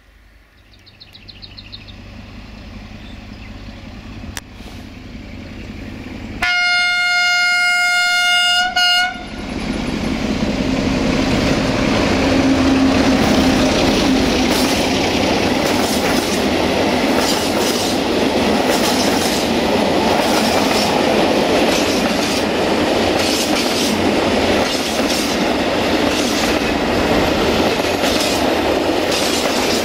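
A 060-DA (LDE2100) diesel-electric locomotive with a Sulzer 12LDA28 engine approaches, getting steadily louder. It sounds one long horn blast of about two and a half seconds, then runs past close by at the head of a freight train. Its engine is heard first, then the regular clatter of the freight wagons' wheels over the rail joints as they roll by.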